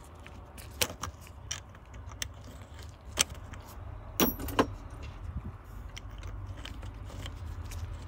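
Sharp metallic clicks and knocks of a Volvo VNL ignition lock cylinder housing and switch being worked into place by hand, about six in all, the loudest about three seconds in and two more close together a little after four seconds, over a low steady hum.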